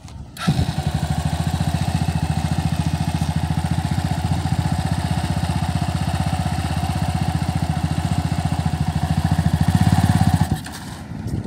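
Yamaha XT dirt bike's single-cylinder engine starting abruptly about half a second in and running with a steady, even pulse as the rider pulls away slowly. It cuts out suddenly near the end.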